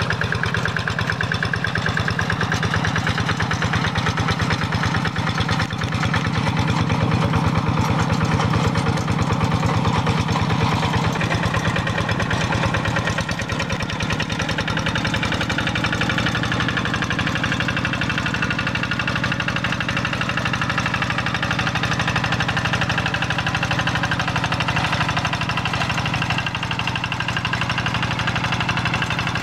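Quick G1000 Boxer two-wheel hand tractor's single-cylinder diesel engine running steadily with an even, rapid chugging beat as it works.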